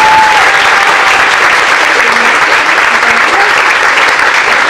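An audience and the cast applauding steadily, with a held high note rising out of the clapping at the very start and fading within about a second.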